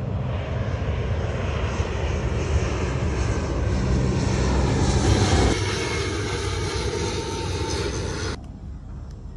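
Airliner flying low overhead, its engines a loud rushing noise that swells to a peak about five seconds in, then cuts off abruptly a little after eight seconds.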